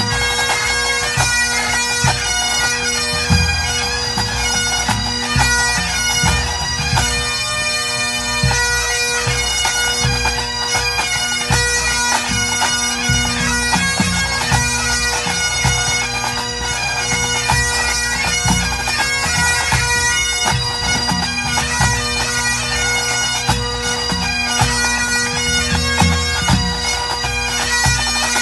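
A full pipe band playing: Highland bagpipes carry the melody over their steady drone, with the band's drums beating beneath.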